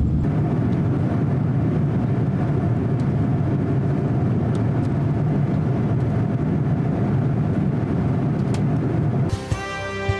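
Steady jet-cabin roar inside a Boeing 787-9 in flight, engine and airflow noise with a faint low hum. Music starts about nine seconds in.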